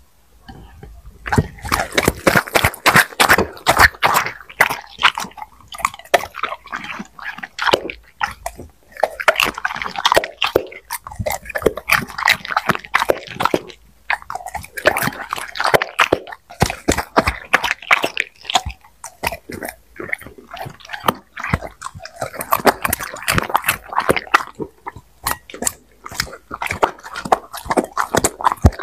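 A black Labrador chewing and smacking wetly as it eats shrimp, broccoli and noodles fed from chopsticks. Quick crunches and wet clicks come in runs of a few seconds, with short pauses between mouthfuls.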